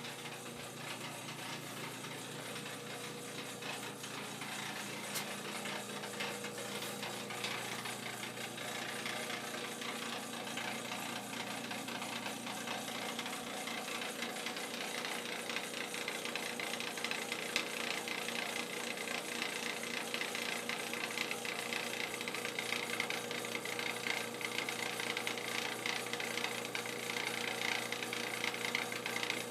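Home furnace running with a constant fast rattle over a steady hum, growing a little louder as it goes.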